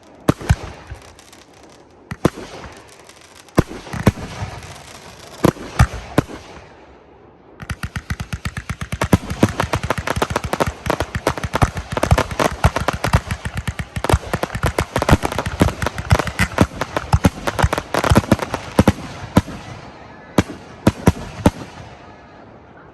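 Fireworks going off: scattered single bangs for the first several seconds, then from about seven seconds in a dense, rapid barrage of bangs and crackles lasting about twelve seconds, ending with a few last bangs.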